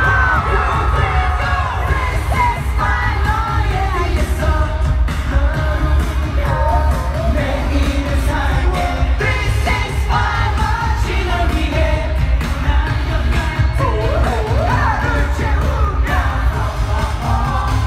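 Live K-pop song played loud over an arena sound system: a heavy bass beat that comes in right at the start, with sung vocal lines over it.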